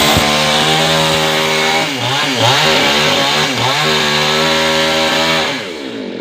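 Chainsaw running at high revs while cutting through a fallen tree. Its pitch dips briefly a couple of times, then falls away near the end.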